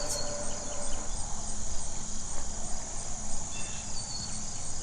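Crickets chirping in a steady high-pitched chorus with an even pulsing rhythm, with a few faint short chirps over it.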